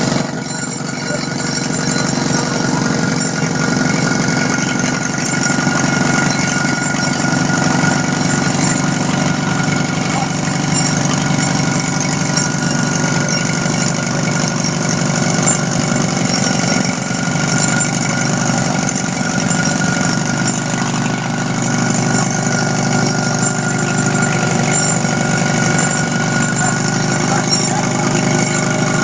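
YSP45 pneumatic stoper rock drill running: a steady, rapid mechanical rattle.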